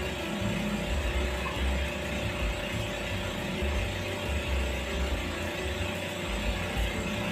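Dental cleaning equipment whirring steadily, with a low uneven rumble beneath it.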